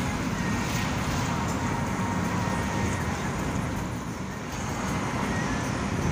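Steady road and engine noise heard inside the cabin of a moving car, dipping briefly about four seconds in.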